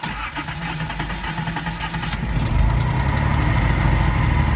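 A Datsun Z's inline-six engine, started with a newly installed ignition switch: it cranks, catches about two seconds in and runs steadily. This shows the new switch works.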